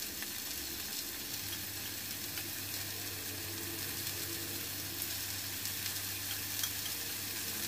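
Slices of marinated beef, mushrooms and onions sizzling on a grill pan: a steady frying hiss, with a few faint clicks of food being moved about.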